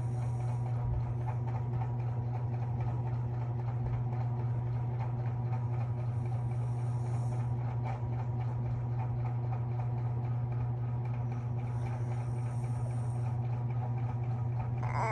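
A steady low mechanical hum, with a fainter hiss coming up twice, about six seconds apart.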